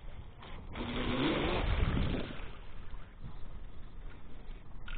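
Twin brushless electric motors of an RC racing catamaran running at speed, with a whine that rises and falls in pitch with the throttle over hissing water and wind noise. It is loudest for about a second and a half, starting just under a second in, then drops back.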